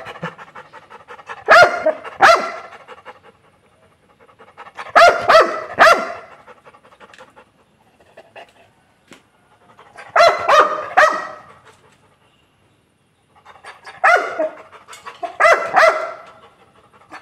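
Labrador barking in short groups of two to four barks, the groups a few seconds apart.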